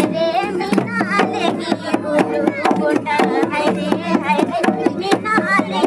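Folk singing accompanied by hand-played barrel drums, struck in a quick, busy rhythm under the voices.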